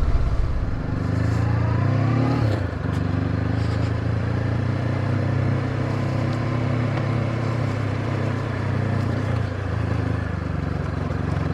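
Honda CB500X parallel-twin motorcycle engine running steadily. Its revs rise about a second in and drop briefly just before three seconds, then it pulls evenly at a steady pitch.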